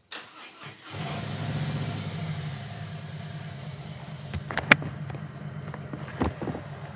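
Harley-Davidson V-twin engine being started hot: about a second of electric-starter cranking, then it catches, runs up briefly and settles into a steady idle. Two sharp clicks come later, one past the middle and one near the end.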